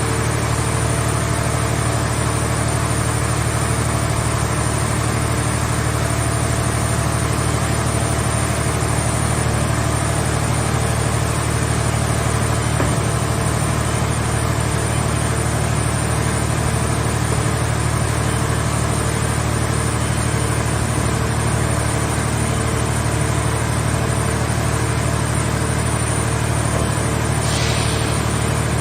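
Engine of a scrap car baler running steadily with a constant low drone, with a brief hiss about a second before the end.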